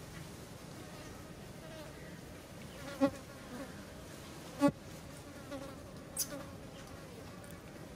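Flies or other insects buzzing steadily. About three seconds in and again about a second and a half later come two brief, sharp sounds, louder than the buzzing.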